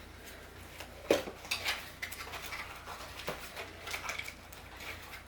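Smart lock parts and packaging being handled: a few knocks and clicks with light rustling, the loudest about a second in.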